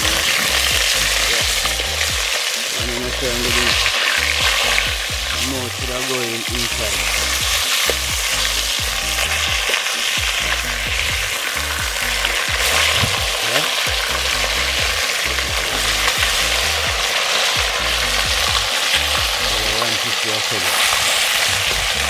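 Fish pieces frying in hot oil in a metal pot over a wood fire: a steady sizzle, with a metal spoon scraping and turning the browning fish.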